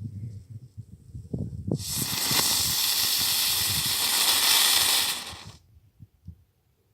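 Weco "Tolle Biene" ground-spinner firework burning with a steady, loud hiss for about four seconds, then dying out.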